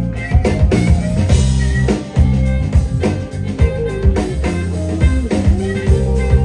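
Live band playing an instrumental passage of a slow blues-flavoured song: guitar leading over bass and drums with a steady beat.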